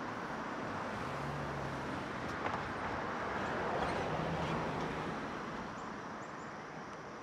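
Distant road traffic: a steady wash of passing cars, with a low engine hum swelling and fading twice.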